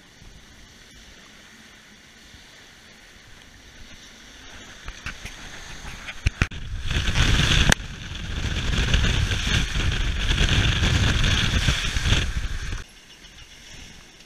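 Water rushing along the hull of a heeled sailboat driving hard in a strong breeze, mixed with wind on the microphone: a low rush at first, swelling after a few seconds into a loud roar of spray and wind for about six seconds, with a single sharp knock partway through, then dropping off abruptly near the end.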